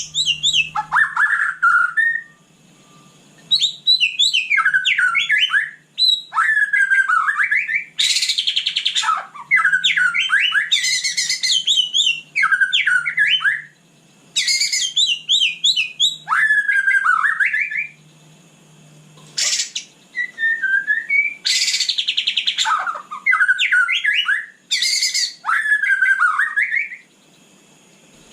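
White-rumped shama singing: a string of loud phrases of quick, sweeping whistles and rapid chattering notes, each phrase lasting a second or two, with short pauses between.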